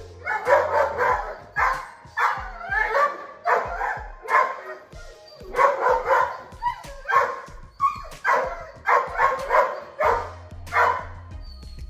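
Large Great Pyrenees/German Shepherd mix barking over and over at another dog, in loud, irregular runs with a short lull about halfway through. Background music with a steady bass line plays underneath.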